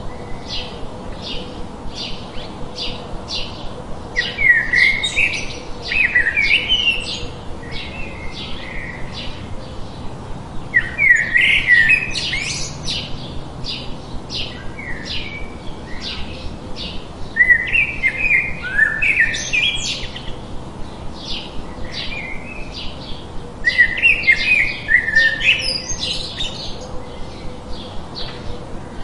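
Forest birdsong: short high chirps repeated about twice a second, broken every six seconds or so by a burst of fast, tumbling song, over a faint steady hiss.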